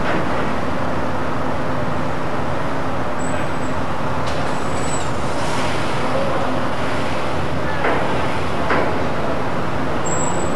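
Steady, loud mechanical rumble of engines and traffic with a faint low hum, and a couple of short knocks about eight seconds in.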